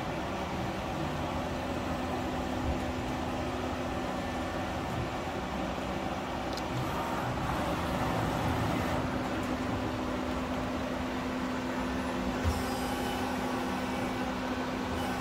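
Hyundai Wia HD2200 CNC lathe running: a steady machine hum with a constant low tone, and a couple of faint knocks.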